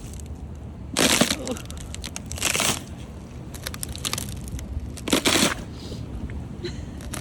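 Three crunching footsteps, spaced unevenly about a second and a half to two and a half seconds apart, over a steady low background rumble.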